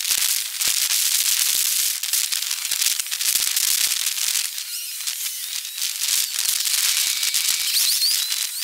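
Dense crackling hiss: a steady high rush thick with rapid clicks and crackles, with a few short chirps near the end.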